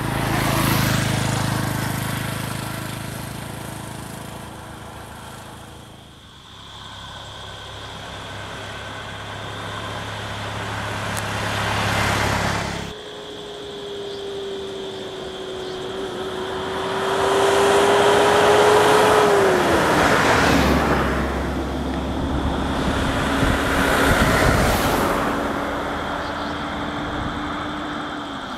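Road vehicle engines running and passing, swelling and fading several times. One steady engine hum drops in pitch partway through. The sound changes abruptly twice.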